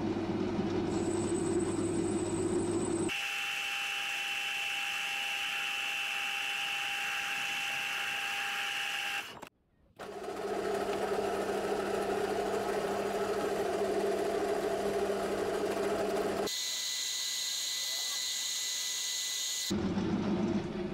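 Metal lathe running with its chuck spinning while a cutting tool turns an aluminium blank. The tone changes abruptly several times, with a steady whine in some stretches, and drops out briefly about nine and a half seconds in.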